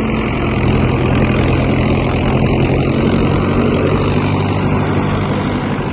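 Tractor engine running steadily at a constant speed while the tractor works sand in a field.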